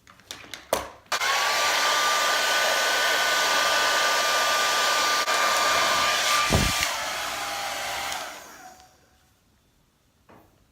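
A handheld hair dryer (blow dryer) is switched on after a few clicks about a second in and blows steadily with a high whine. The whine drops in pitch near seven seconds, then the dryer winds down and stops about nine seconds in. A short low thud comes just before the pitch drop.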